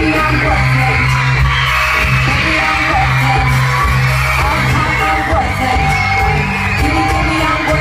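Loud pop dance music with a heavy bass beat, with a crowd yelling and cheering over it.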